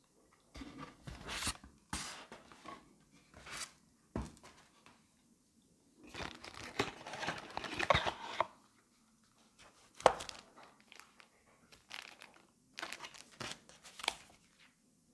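Unboxing handling noise: cardboard box flaps rustling and plastic accessory bags crinkling in irregular bursts, densest for about two seconds in the middle as bags are lifted out of a small box. A few sharp taps stand out, the loudest about ten seconds in.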